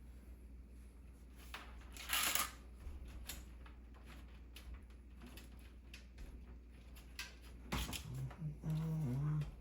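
Rustling and small clicks of cables and parts being handled while wiring a PC, with a louder rustle about two seconds in. Near the end a man's low voice hums or mumbles.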